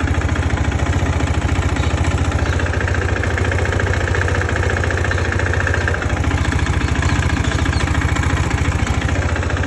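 KTM RC390's single-cylinder engine idling steadily.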